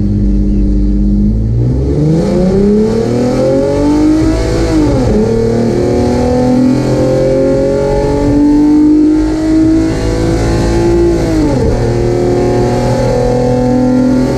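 Car engine at full throttle on a drag-strip pass: it holds steady, launches about a second and a half in, and climbs in pitch through the gears, with a sudden drop at each of two upshifts.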